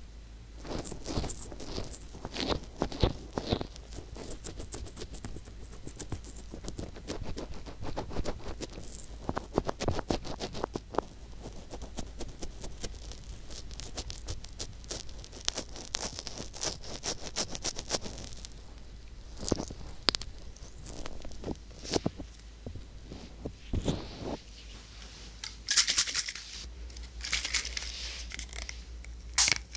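Fingertips rubbing, pressing and sliding over the silicone ear of a dummy-ear microphone, heard right at the mic as close, crackly scratching and rustling with many small clicks. A little before the end come two short hissing spurts.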